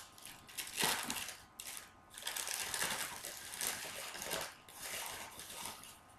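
Crinkling and crackling of a clear plastic bag as a bath bomb inside it is handled, in irregular bursts.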